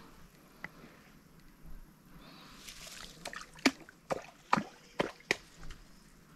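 Water sloshing and dripping, with a quick run of about five sharp slaps in the second half.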